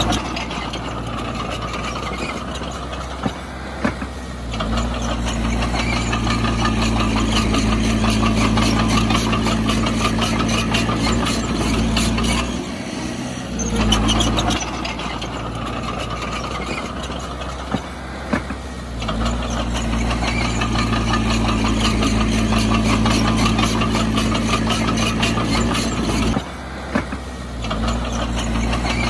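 Heavy diesel engine of earthmoving machinery running hard, with metallic clatter over a steady low drone. The engine note drops away briefly twice, about halfway and again near the end.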